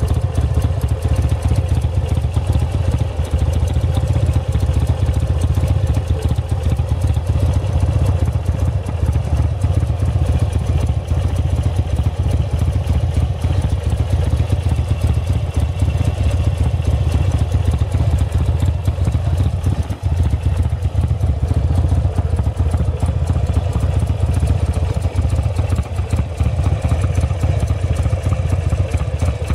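Buell XB9S Lightning's air-cooled V-twin engine idling steadily, a constant low, rapidly pulsing throb.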